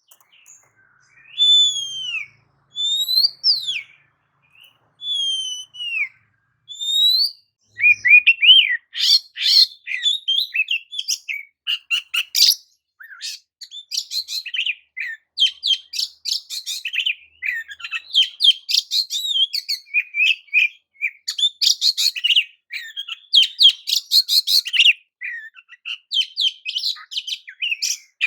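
Oriental magpie-robin (kacer) singing: a few clear slurred whistles about a second apart, then from about eight seconds in a fast, continuous, varied warbling song.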